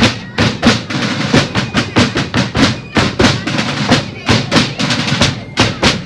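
Rope-tension snare drums and bass drums of a colonial-style drum corps playing a fast cadence together, with dense rolls between the strokes.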